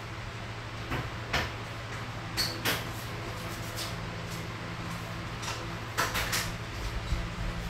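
Irregular light household knocks and clatters, about nine in all, with a quick run of three about six seconds in, over a steady low hum.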